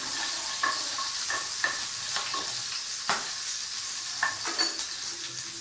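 A tempering of cumin seeds, chopped green chillies and curry leaves sizzling in hot oil in a frying pan while it is stirred, with scattered pops and clicks.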